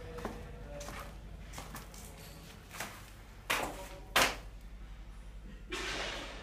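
Two sharp knocks a little over half a second apart, past halfway, the second the loudest, over a low steady hum; a short rush of hiss near the end.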